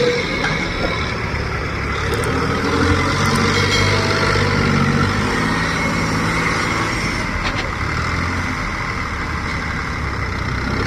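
New Holland 3630 tractor's three-cylinder diesel engine running under load as it works its front grab loader through a cotton pile, the engine speed shifting up and down with the work.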